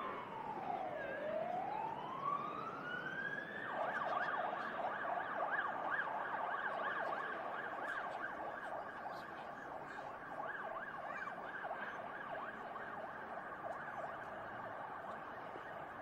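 Emergency vehicle siren sounding a slow wail that falls and then rises. About four seconds in it switches to a fast yelp, rapidly rising and falling in pitch, which carries on.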